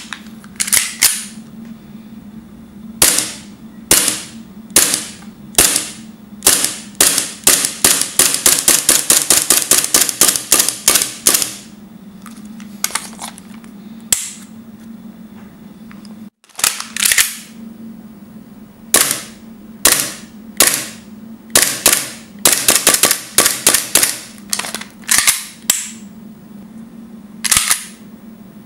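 Tokyo Marui Glock 17 gas blowback airsoft pistol with a Guarder aluminum slide firing, each shot a sharp crack as the gas cycles the slide. It fires single shots about a second apart, then a fast string at about five shots a second, then more shots in short groups, with a faint steady low hum underneath.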